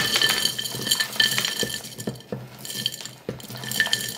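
Mixed nuts and seeds being mixed in a jar: a dense run of small clicks and rattles against the jar, which rings with a clinking note.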